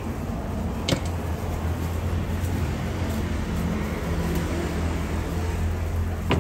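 Steady low rumble of street traffic, with two sharp clicks, one about a second in and one near the end.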